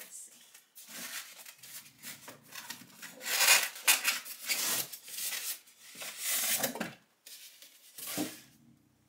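Cardboard and packing material rubbing and rustling in irregular bursts as items are rummaged for and pulled out of a sewing-machine box, loudest in the middle.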